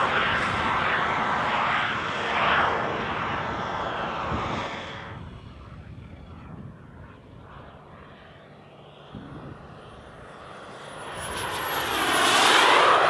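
Swiwin SW120B model jet turbine in an Xcalibur RC jet flying past. A loud pass fades away over the first five seconds. Near the end it swells into another loud pass, with a thin high whistle that bends up and back down as the jet goes by.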